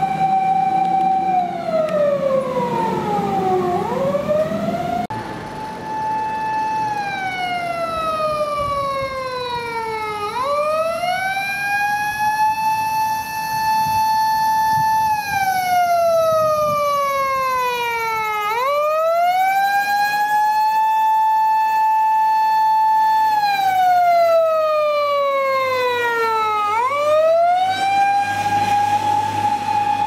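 Emergency vehicle's electronic siren wailing, rising to a held high note, then sliding slowly down and back up, about one cycle every eight seconds. The pattern breaks and restarts about five seconds in.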